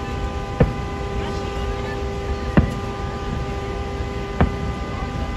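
Fireworks shells bursting overhead: three sharp booms about two seconds apart, over a steady low rumble and a faint steady hum.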